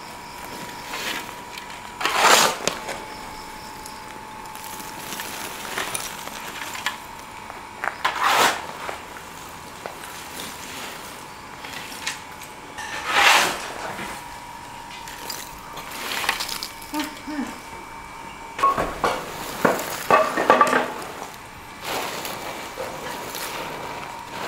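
A metal shovel scraping and tossing ash and embers in a brick fire pit, in a few separate strokes, followed near the end by a spell of clinks and knocks.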